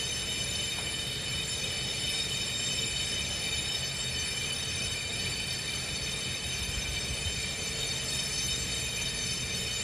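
A steady, high-pitched motor whine over a low rumble, holding the same pitch throughout without a break.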